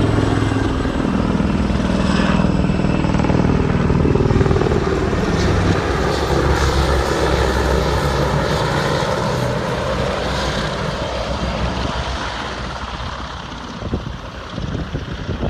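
Military helicopter flying past, with steady rotor and turbine noise that fades away over the last few seconds.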